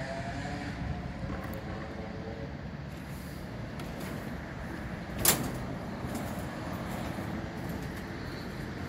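Steady low rumble of wind and distant street traffic, with one sharp knock a little past halfway through.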